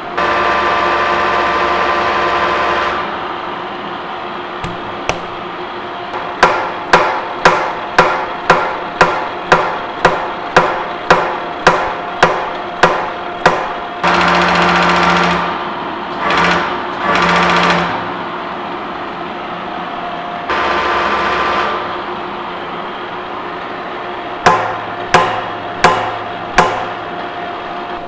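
Hammer blows tapping a thick steel heat exchanger plate into line while it is indicated on a horizontal boring mill: a quick run of about fifteen strikes at roughly two a second, and later four more. Between them a machine motor runs in short spells of a second or three.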